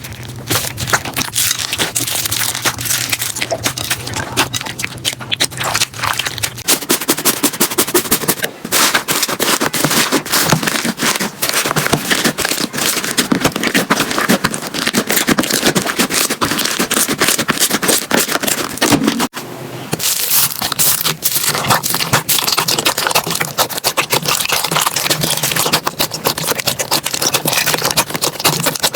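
Slime being squeezed and pressed by hand, giving dense, rapid crackling and popping clicks, with a brief break about 19 seconds in.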